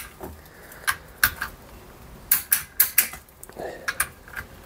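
Ratchet wrench clicking in short irregular runs of sharp clicks as the clutch spring bolts are tightened down.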